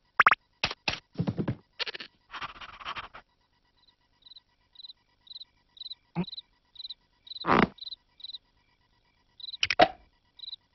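Cartoon sound effects: a quick run of short pops and noises, then a cricket chirping steadily at about two high chirps a second, with a few single plops and noises breaking in.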